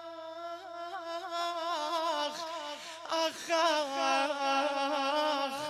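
A male radood chanting a lament, holding long wordless notes in a Middle Eastern melodic style, with quick wavering ornaments on the line.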